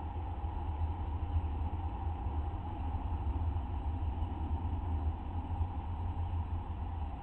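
Steady low electrical hum and rumble with a faint hiss: background noise from a nest-box camera microphone.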